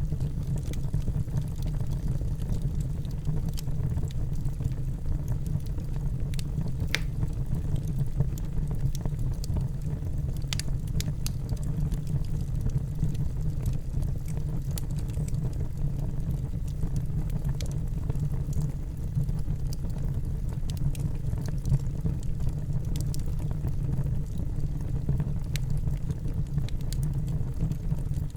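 Wood fire burning in a fireplace: a steady low rumble of flames with scattered faint crackles and pops.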